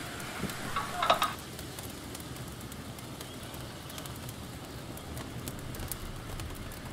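A utensil scraping food off a wooden cutting board into a stainless steel bowl, with a sharp clatter about a second in. Then a wood fire crackling with many small pops over a low rumble.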